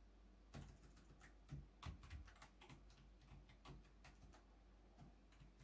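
Faint, irregular keystrokes on a computer keyboard: a password being typed.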